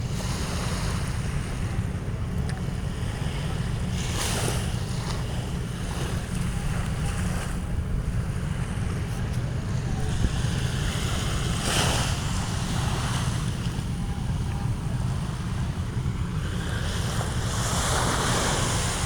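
Ocean waves breaking and washing in, with hissing surges a few seconds in, about two-thirds of the way through and near the end, over a steady low rumble of wind on the microphone.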